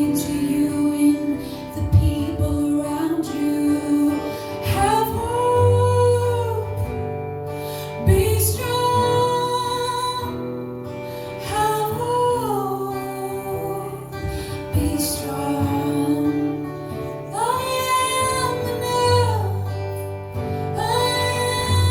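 A woman singing slow, long-held, gliding notes in a worship song, over plucked guitar accompaniment with sustained low notes.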